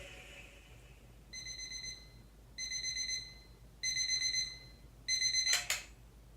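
Electronic alarm clock beeping four times, each beep about half a second long and about 1.25 s apart, cut off by a sharp click just after the fourth. The tail end of the music fades out in the first second.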